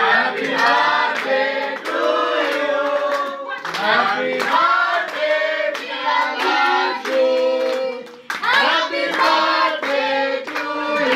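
A group of men, women and children singing a birthday song together while clapping along, with a brief pause about eight seconds in before the singing and clapping pick up again.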